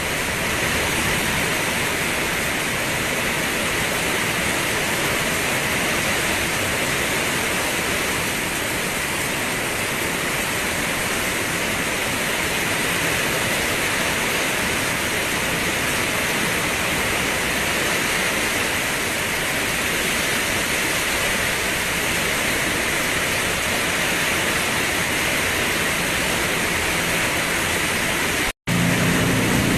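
Steady, dense rainfall hiss. Near the end it drops out for an instant, and a low rumble comes in beneath the rain.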